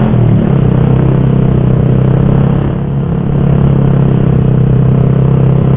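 Motorcycle engine running at a steady cruising pitch, with wind and road noise rushing over the microphone. The level dips briefly about three seconds in.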